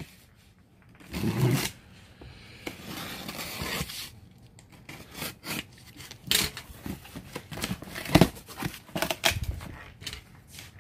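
Cardboard box being opened: a dull bump, then a long hissing slice as a box cutter runs through the packing tape, then the flaps scraping, clicking and rustling as they are pulled back.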